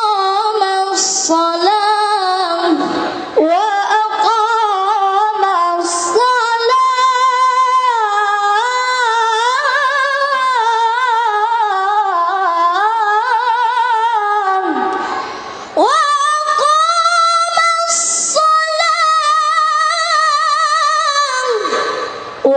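A child reciting the Qur'an in melodic tilawah style: long, ornamented phrases held in a high voice, with short pauses for breath about three seconds in and again near fifteen seconds.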